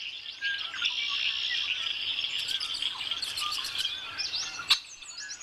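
Many birds chirping and twittering at once, a dense chorus of high calls, with a single sharp click about four and a half seconds in.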